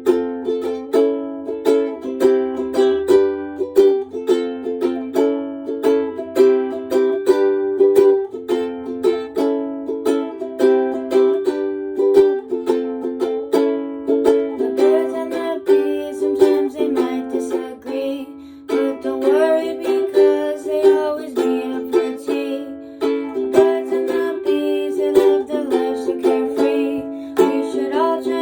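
Ukulele playing a steady, repeating pattern of plucked notes: an instrumental passage of a song.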